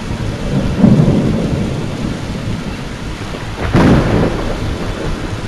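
Tornado winds roaring on a security camera's microphone as debris flies past, with a louder surge about a second in and another, sharper one near four seconds.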